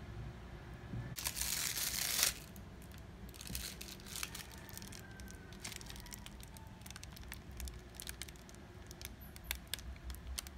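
Macaron shells, parchment paper and a piping bag being handled: a rustle lasting about a second near the start, then scattered light clicks and taps.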